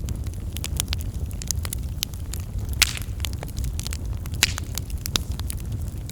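Wood fire burning with a steady low rumble and irregular sharp crackles and pops, the loudest a little before the midpoint and again a second and a half later.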